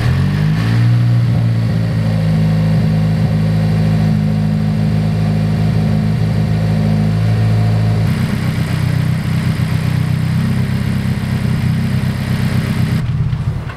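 Honda Civic Si's turbocharged four-cylinder engine fired up and idling steadily, its first run after the new front-mount intercooler and charge piping went in; the note turns rougher about eight seconds in and the engine stops near the end.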